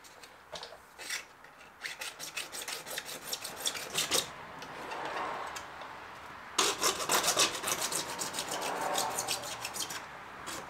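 Hacksaw cutting through PVC pipe in quick back-and-forth scraping strokes. The strokes ease off for a couple of seconds around the middle, then come back harder about six and a half seconds in.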